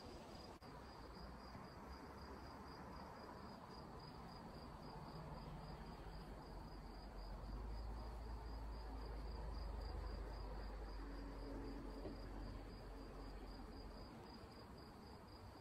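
An insect chirping in a steady, rapid, high-pitched pulsing trill, faint, with a low rumble that swells in the middle.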